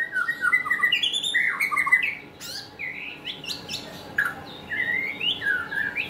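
White-rumped shama singing: a rapid string of varied whistled notes, sweeps and short chattering phrases, busiest and loudest in the first two seconds and sparser after.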